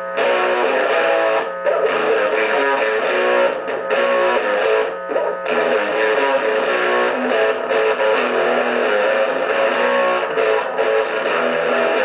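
1959 Gibson Les Paul electric guitar with a P-90 pickup, played through a small Fender pocket amp: strummed chords and riffs, with short breaks about a second and a half, four and five seconds in.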